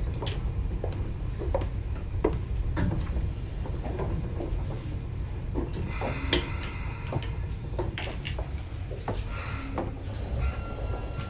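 Inside a Sotetsu 9000 series electric train car at the end of its run into its terminus: a steady low rumble with scattered clicks and knocks, and a faint thin tone from about two-thirds of the way in.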